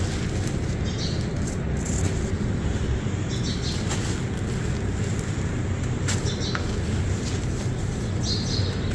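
Dry sand-cement crumbles crushed in the hands and poured onto a dusty floor: a steady grainy trickle and crunch, with scattered sharp crackles as lumps break.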